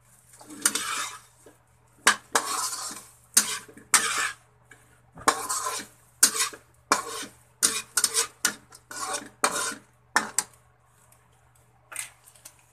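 Metal spatula scraping and knocking against a wok while tossing chicken wings in a thick salted egg butter sauce. The strokes are irregular, about one to two a second, and stop about ten seconds in, with one more stroke near the end.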